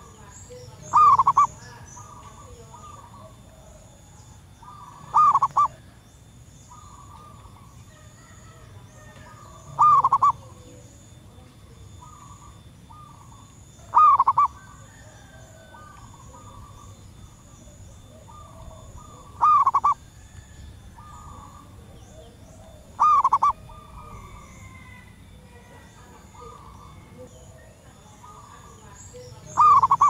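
Zebra dove giving short, rapidly pulsed coos, seven loud calls spaced about four to five seconds apart, with fainter bird calls in between. It is presented as a female zebra dove calling for males.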